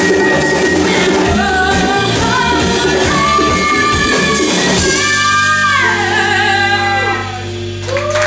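A live Latin funk-soul band with a woman singing: drums, congas and guitar play with a steady beat. About five seconds in, the beat stops and the band holds a chord under her long, falling vocal notes, as at the close of a song. Right at the end the audience starts to cheer.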